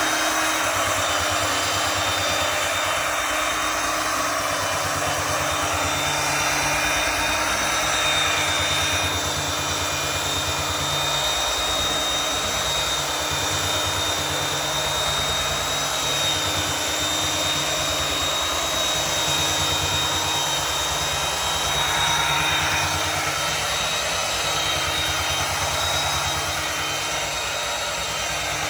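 Belt sander with an 80-grit belt running steadily on a hickory tabletop: a steady high motor whine over the rasp of the belt on the wood.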